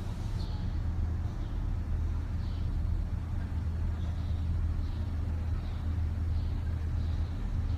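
Steady low outdoor rumble, like distant traffic, with faint short high chirps recurring every second or so.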